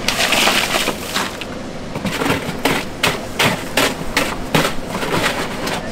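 Ice and fish being shifted about in a plastic cooler: a rushing crunch of ice, then a quick string of sharp clacks, about three a second.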